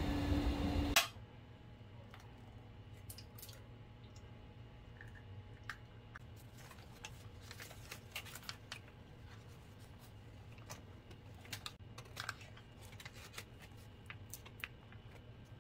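Light, irregular clicks and taps of kitchen utensils and containers being handled. This follows a loud, steady hum that cuts off suddenly about a second in.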